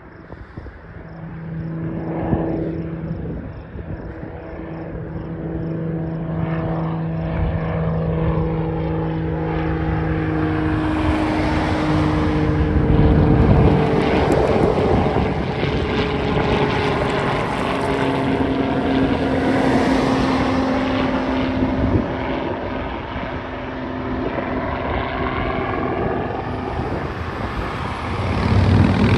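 Single-engine light propeller airplane climbing out after takeoff. Its engine drone grows louder, then drops in pitch about halfway through as it passes and flies away.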